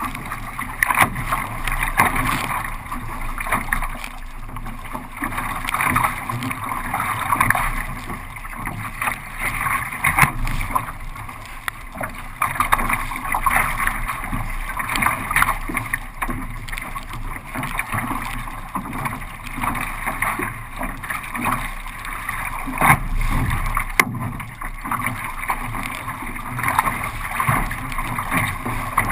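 Water rushing and splashing against a kayak moving through choppy sea, recorded from on the boat, with uneven surges and small splashes.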